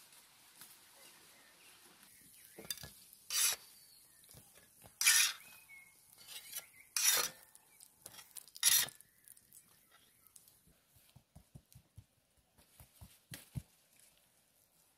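Metal spatula scraping fried buns off an oiled saj griddle: four short, loud scrapes with sizzling, each under half a second. Near the end, a run of soft quick taps as dough is patted flat on a plastic cutting board.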